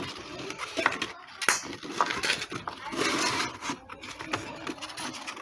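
Handling noise: irregular rustling and scraping with a few light knocks and clicks.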